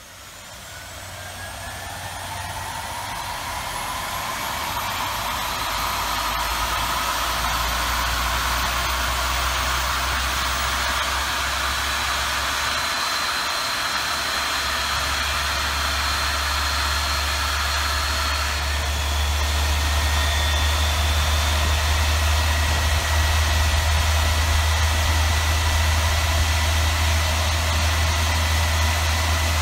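Airliner turbofan engine spinning up during its start sequence. A rising whine climbs in pitch over a low rumble and grows louder over the first several seconds as the starter turns the high-pressure shaft. About 18 s in the sound steps up to a steadier, slightly louder tone as the fan begins to turn.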